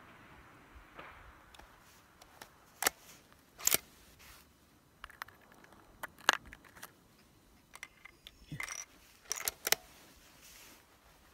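Sharp metallic clicks and clacks of a scoped bolt-action rifle being reloaded by hand, with a cartridge drawn from a plastic ammo box and chambered. The clicks come singly and in small clusters, the busiest cluster near the end, as the last echo of a rifle shot dies away at the start.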